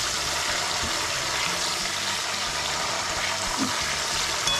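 Thin slices of raw green banana deep-frying in a wok of hot oil: a steady sizzle, with a light metal clink of the wire strainer near the end. The oil still bubbling hard means the chips are still giving off moisture; the sizzle settles down once they are crisp and done.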